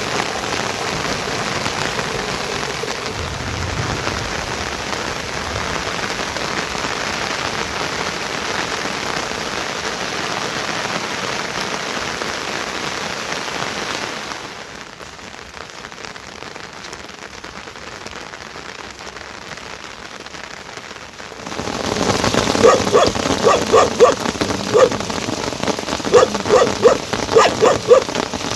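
Heavy rain falling steadily, easing to a softer patter about halfway through, then growing louder again. Near the end a dog barks repeatedly through the rain.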